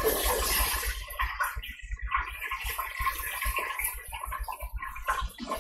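Chicken pieces deep-frying in a lidded electric deep fryer: hot oil sizzling and crackling unevenly.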